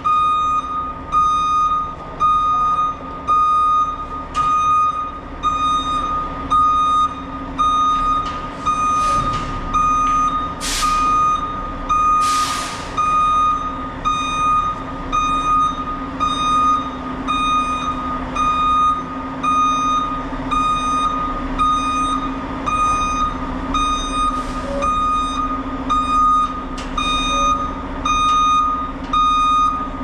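A farm machine's reversing alarm beeping steadily in an even rhythm over a running diesel engine, with two short hisses near the middle.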